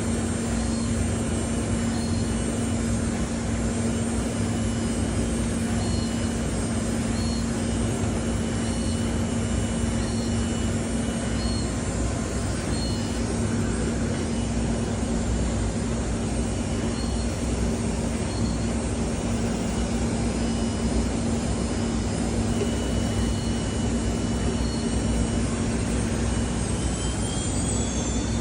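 Gold Star StarPro AG 510 CNC router running: a steady hum under a wash of machine noise with thin high whines, and near the end the high whines glide in pitch as the machine changes speed.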